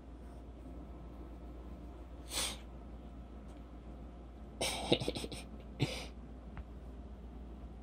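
Short sneezes: one a little over two seconds in, then a sputtering run of bursts around the middle, and one more about a second later.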